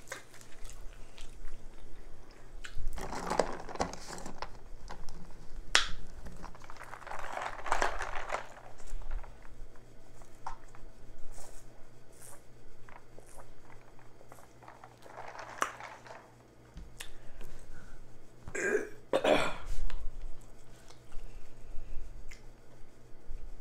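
Close-miked eating sounds: chewing and lip-smacking on a jalapeño cheddar sausage, with a sip through a straw partway through and two short, loud throat sounds near the end.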